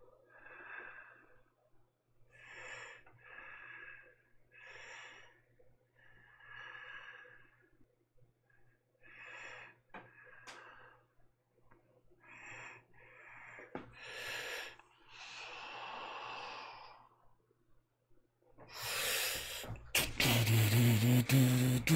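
A man breathing close to the microphone: short, audible breaths every second or two. Near the end comes a louder burst of rustling noise with a low hum.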